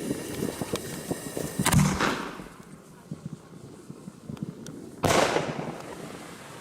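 Fireworks going off: a rapid crackle of small pops, then a loud bang just under two seconds in and another about five seconds in, each trailing off in an echo.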